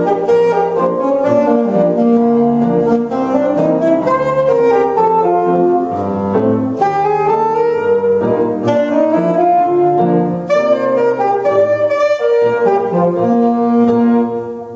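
Alto saxophone and upright piano playing a rag together, the saxophone holding the melody over the piano; the music closes just before the end.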